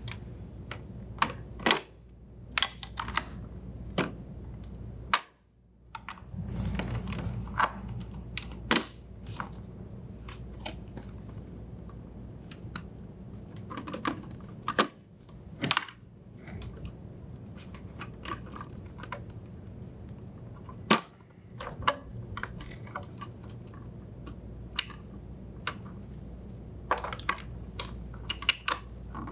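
Plastic wire-harness connectors being unlatched and pulled off a refrigerator's main control board: irregular sharp clicks and snaps, over a low steady hum.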